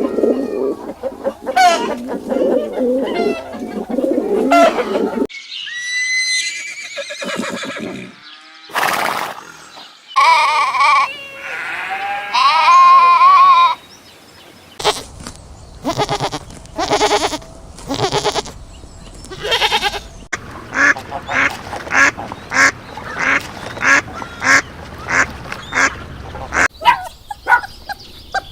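A run of different animal and bird calls, one after another: pitched calls in the first few seconds, then rising chirps, then loud calls, and a rapid series of repeated calls in the second half.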